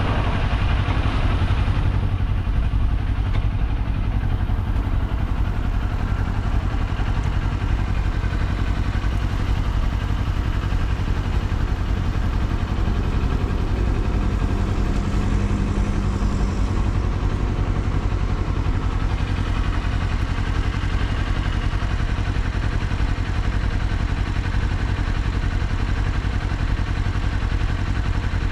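Kawasaki Z400's parallel-twin engine running steadily while the motorcycle is ridden, with no clear revs or gear changes.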